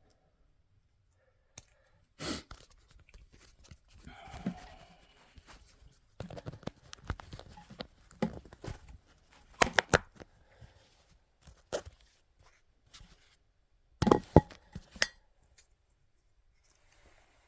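Hands working the plastic and rubber parts of a new toilet fill valve kit, pushing the centre piece out of a rubber washer: irregular clicks, snaps and scraping, with the sharpest snaps about ten and fourteen seconds in.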